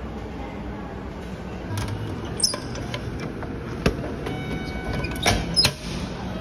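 Drink vending machine dispensing an aluminium bottle of coffee: a sharp clunk as the bottle drops into the delivery slot, then two louder knocks near the end as the slot's plastic flap is pushed open and the bottle is pulled out.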